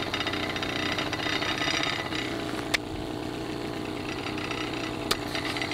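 Miniature model steam engine running fast on steam from a small boiler: a steady, rapid, buzzing beat. Two sharp clicks sound, one about halfway through and one near the end.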